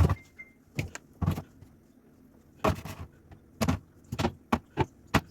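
A series of sharp knocks and clicks as containers are set down and moved around on refrigerator shelves and a plastic turntable, about nine in all, with a short quiet pause around two seconds in.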